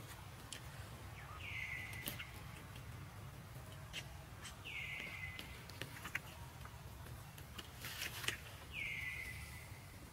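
An animal call repeated three times, about every three and a half seconds: each a short note that slides down and then holds briefly. Scattered light clicks fall between the calls.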